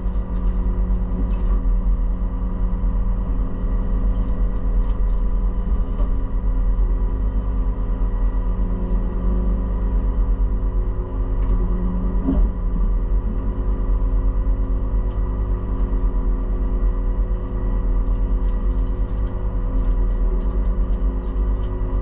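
Case IH combine harvester running steadily while harvesting soybeans: an even engine and machinery drone made of several constant tones, with one brief knock about twelve seconds in.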